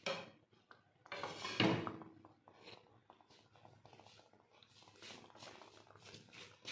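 Kitchen handling noises: a louder rustling, scraping sound lasting about a second near the start, then faint clicks and knocks as utensils and containers are moved around.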